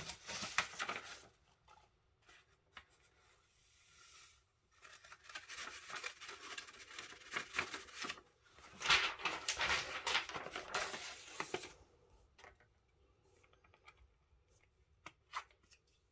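Sheets of copy paper being lifted, folded and rustled in two stretches: a short one at the start and a longer, louder one through the middle. A few light ticks follow near the end.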